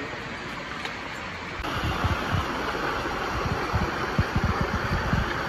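Steady rush of flowing water. About a second and a half in it grows a little louder, with a low, irregular rumbling and knocking.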